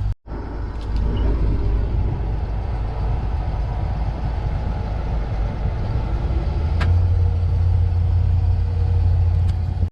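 Case IH 2188 combine harvester running steadily: a low engine rumble under a wash of machinery noise. The low hum grows stronger about seven seconds in.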